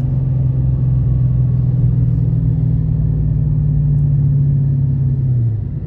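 A car's engine and road noise heard from inside the cabin while driving: a steady low drone that falls in pitch and level near the end.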